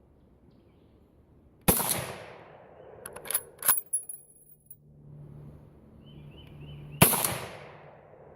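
Two .223 Remington rifle shots about five seconds apart, each with a ringing echo, from light cast-bullet loads. A few sharp metallic clicks come between the shots, as the action is worked by hand: these loads fire but do not cycle the rifle.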